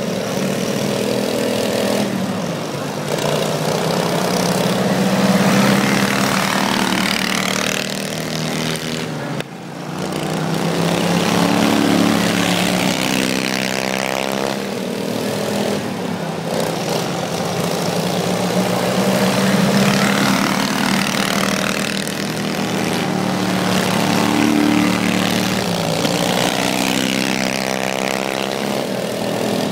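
Two riding lawn mowers' small engines running and revving as they race, their pitch rising and falling over and over, with a brief lull about a third of the way in.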